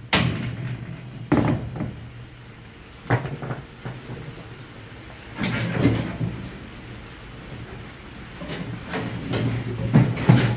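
Loud metal bangs and knocks on a steel trailer frame as it is worked loose, hammer blows among them, coming irregularly a second or a few seconds apart, with a quick cluster near the end.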